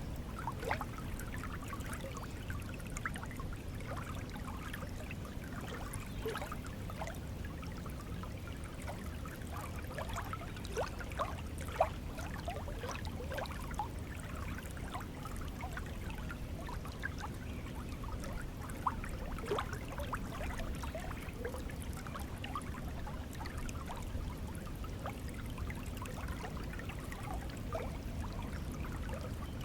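Stream of water flowing steadily, with a low continuous rush and many small bubbling, gurgling plinks as it trickles over stones.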